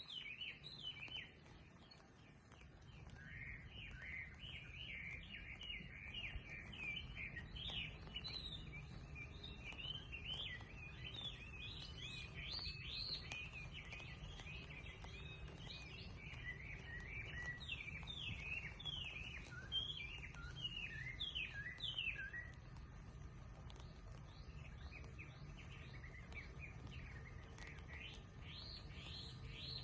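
Small birds chirping in a dense, rapid series of short downward-sweeping notes. The notes thin out after about 22 seconds and pick up again near the end, over a steady low background rumble.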